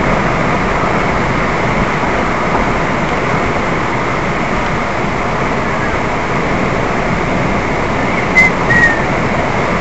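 Steady rush of wind and road noise from a cruiser motorcycle riding at speed, the wind loud on the front-mounted camera microphone. About eight and a half seconds in comes a sharp click, then two short high squeaks.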